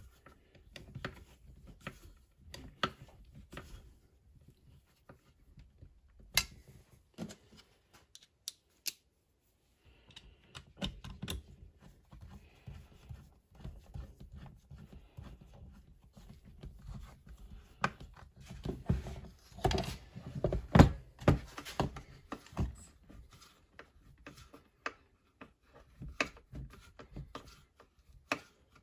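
Handling and fitting plastic and metal chainsaw kit parts on a workbench: scattered clicks, taps and knocks, busiest and loudest about two-thirds of the way through.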